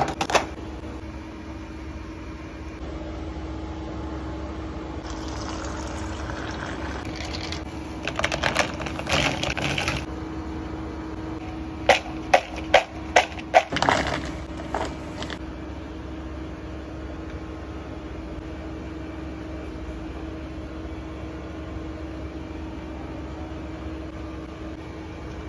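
Steady machine hum of kitchen equipment, with brief clattering and rustling of food preparation. About halfway through comes a quick run of five sharp knocks as a plastic bowl of fries is handled on a steel counter.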